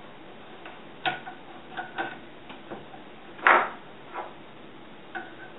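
Irregular metal clicks and taps from AR-15 gas piston parts, the op rod and gas block, being handled and lined up on the upper receiver. About half a dozen clicks, the loudest clack about three and a half seconds in.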